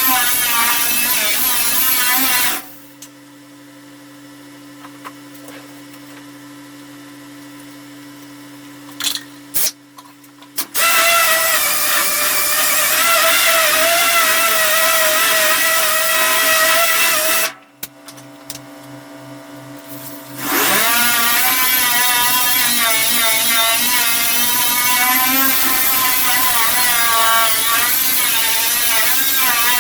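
Hand-held power tool stripping paint, its whine wavering in pitch as the load changes. It stops twice for several seconds, leaving a steady low hum, then starts again.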